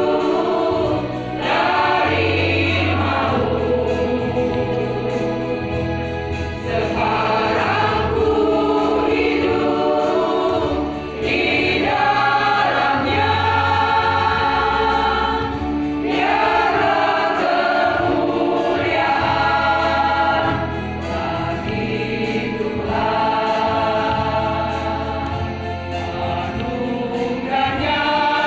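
Women's choir singing in harmony, long held chords in phrases with short breaths between them every few seconds.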